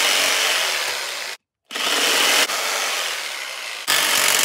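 Handheld power saw cutting through an HDPE plastic bucket lid, the blade running loud and rasping through the plastic. It cuts out for a moment about a second and a half in, then starts up again.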